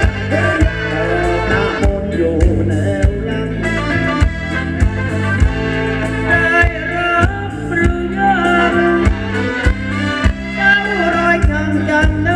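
Live band playing Thai ramwong dance music: a steady drum beat and bass under a sung vocal melody.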